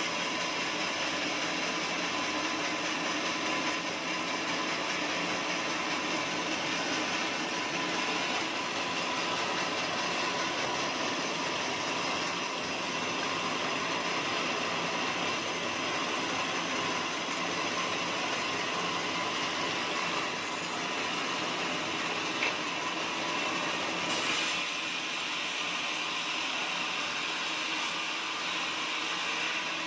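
Bandsaw mill running steadily as its blade saws through teak wood: a continuous machine noise with a few steady tones, and a brief tick about 22 seconds in.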